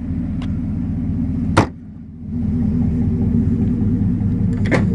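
Chevrolet Avalanche's 5.3-litre V8 idling with a steady low rumble. About a second and a half in, a sharp slam as the side cargo-box lid is shut, and a smaller click near the end.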